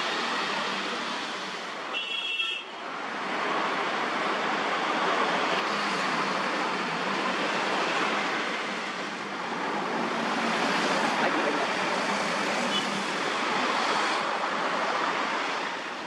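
Steady noise of dense city road traffic: cars, motorcycles and auto-rickshaws driving past. A short horn honk comes about two seconds in.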